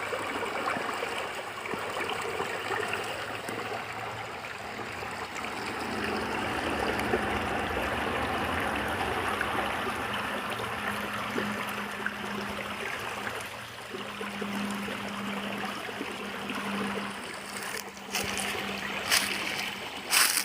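A small woodland brook running and trickling over stones, a steady water sound. Near the end come a few short, sharp crackles.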